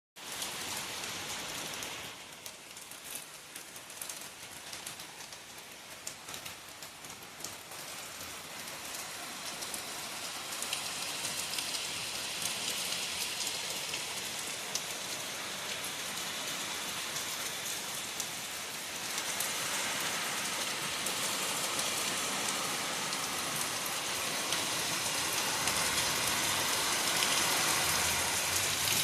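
Steady rain falling, a dense hiss with many individual drops ticking through it, growing gradually heavier and stepping up in loudness a little past halfway.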